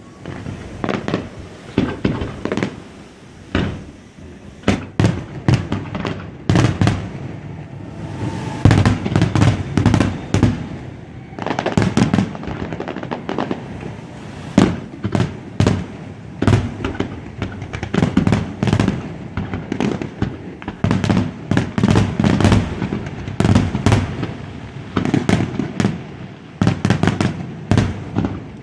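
Fireworks display: a rapid, irregular string of aerial shell bursts and crackling reports, the bangs overlapping with rumbling echoes.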